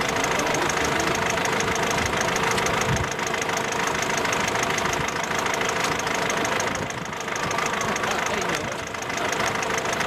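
A tractor engine running steadily, with a fast, rough chugging.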